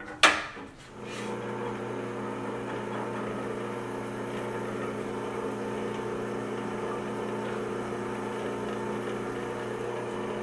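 Benchtop drill press: a sharp knock just after the start, then about a second in the motor starts and runs with a steady hum while the bit drills into a Mazda 13B rotary engine's side housing.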